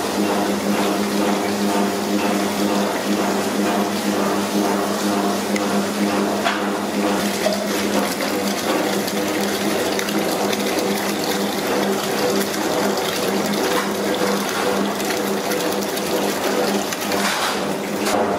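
Water from a hose pouring steadily into a steel pot of frozen fish pieces, splashing and churning as the pot fills, with a steady hum underneath.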